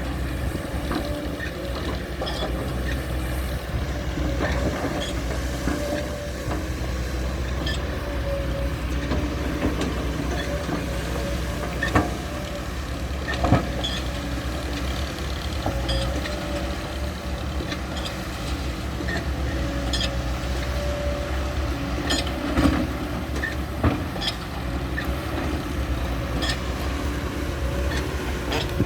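SANY SY200C excavator at work: its diesel engine runs steadily with a wavering whine over it, and a few sharp knocks stand out now and then.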